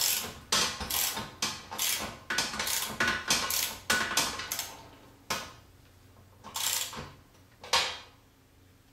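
Ratchet socket wrench clicking as a bolt is driven in to hold a steel ceiling bracket, in short strokes about two a second, then three slower strokes near the end.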